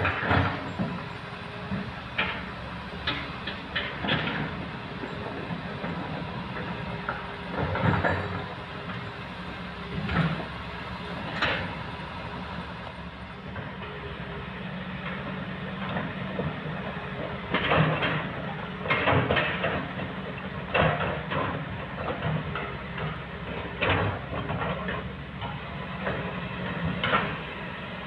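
Heavy diesel machinery running steadily, with irregular clunks and clatters of rocks being loaded into a dump truck's bed, several in quick succession at times.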